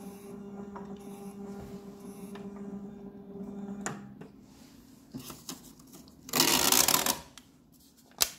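Biochemical analyzer's aspiration pump humming steadily as wash water is drawn through its sample tube, stopping with a click about four seconds in. A few light clicks follow, then a loud rushing noise lasting under a second and a sharp click near the end.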